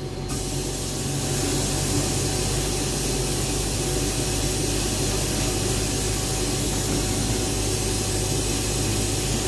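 Sandblasting cabinet gun blasting aluminium oxide grit onto a metal tube. It starts suddenly just after the beginning and holds as a steady, even hiss of air and abrasive over a steady low machine hum.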